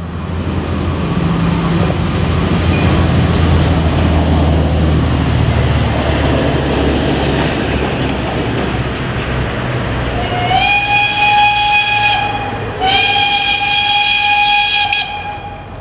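Narrow-gauge steam locomotive's whistle sounding two blasts, the second longer, each rising briefly in pitch as it opens, as the engine approaches a level crossing. Before the whistle, a steady low rumble.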